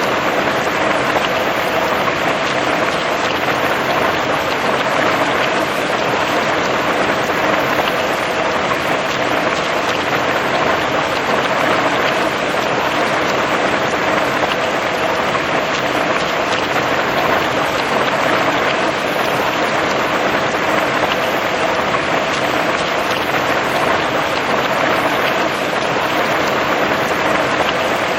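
Steady heavy rain falling on a surface, an even hiss with fine scattered drop impacts and no change in strength.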